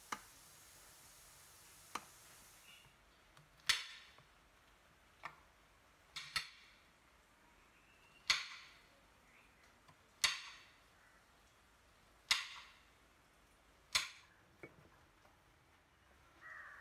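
A kitchen knife chopping a bar of milk chocolate on a plastic cutting board: sharp chops about every two seconds, each dying away quickly. Before that come a couple of light taps as a silicone spatula presses biscuit crumbs into a metal cake tin.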